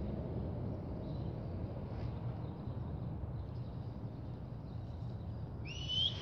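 Steady low rumble of wind on the microphone, with one short rising whistle near the end.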